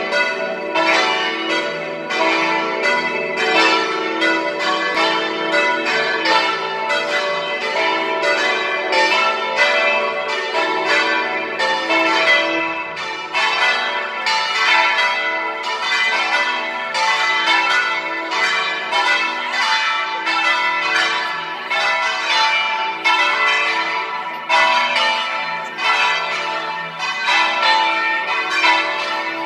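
Several church tower bells ringing a festive peal: strikes follow one another several times a second, overlapping over a continuous ringing hum.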